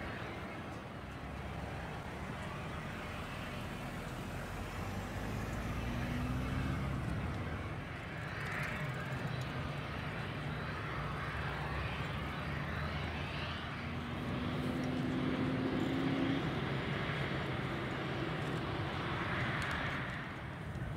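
Boeing 747-8F freighter's General Electric GEnx jet engines running as the airliner rolls out along the runway after landing: a steady jet rumble and hiss with a faint engine hum that rises slightly now and then.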